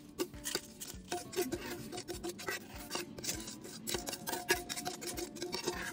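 Coarsely blended dried chilli paste being scraped out of a blender jug into a steel bowl: a rapid run of rasping scrapes and small knocks.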